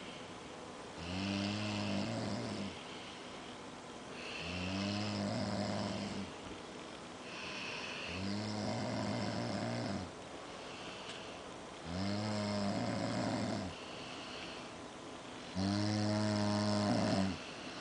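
Two sleepers snoring together: five loud snores, each lasting about a second and a half and coming roughly every three and a half seconds, with quieter breaths between them.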